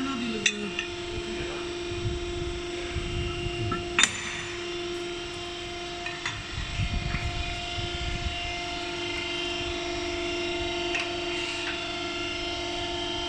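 Hydraulic busbar-processing machine running with a steady hum. A sharp metallic clack comes about four seconds in, and there are duller clunks of metal being handled a few seconds later.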